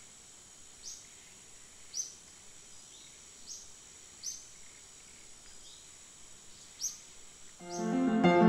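Faint outdoor ambience with a bird giving short, single rising chirps every second or so over a steady high tone. Near the end, gentle instrumental music with plucked notes comes in and becomes the loudest sound.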